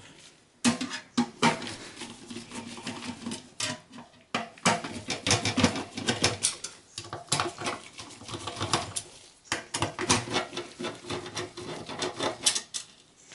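Screwdriver backing out the hard drive's mounting screws from a steel PC drive cage: an irregular run of small metal clicks and rattles, pausing briefly a few times.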